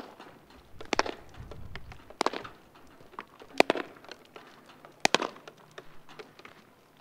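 A series of sharp impact cracks, four loud ones about a second and a half apart with fainter ones between. Each one comes back as a quick echo off the large concrete wall of a building.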